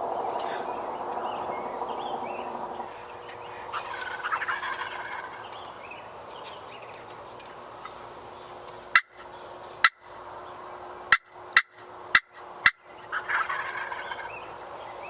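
Wild turkey toms gobbling, once about four seconds in and again near the end. Between the gobbles come six short, sharp clicks, the loudest sounds here.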